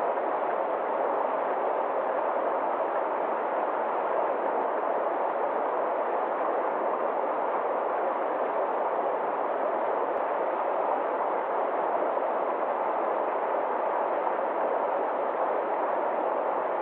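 Forest stream rushing over small rocky cascades: a steady, unchanging rush of water.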